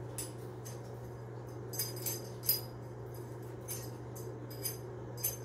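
Light metallic clicks and clinks of pliers working the stiff adjusting screws on a bathtub trip-lever drain linkage's threaded rod, scattered irregularly over a steady low hum.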